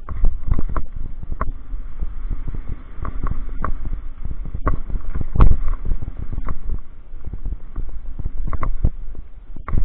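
Downhill mountain bike descending a rocky dirt trail: a rapid, uneven run of rattles and knocks from the bike over stones and bumps, with a heavier knock about halfway through, over a low wind rumble on the camera's microphone.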